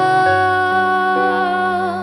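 Slow worship song with a singer holding one long note that wavers slightly near the end, over a sustained accompaniment.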